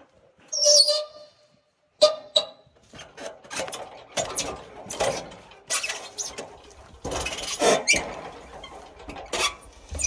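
A dog gives a brief whine about a second in. From about two seconds on comes a run of irregular knocks, cracks and scrapes as a rotted eastern red cedar log on the sawmill bed is worked by hand, its loose rotten wood and bark being knocked and torn off.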